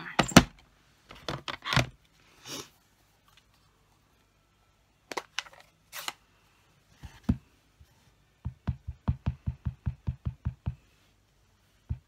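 A clear acrylic stamp block knocked and set down on a desk a few times. Then comes a quick run of about fourteen even taps, at about six a second, as the rubber stamp is tapped onto an ink pad to ink it.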